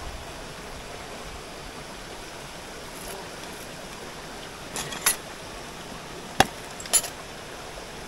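Steady rush of a forest waterfall and stream, with four short sharp clinks, like utensils or dishware knocking, between about five and seven seconds in; the third is the loudest.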